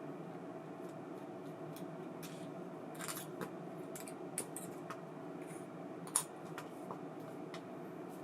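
Scattered light clicks and scrapes of small parts and tools being handled during reel servicing, over a steady low hum; the sharpest click comes about six seconds in.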